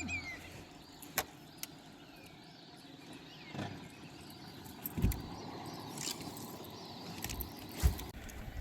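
Scattered light knocks and thumps over a faint steady background, with two louder thumps about five seconds in and near the end.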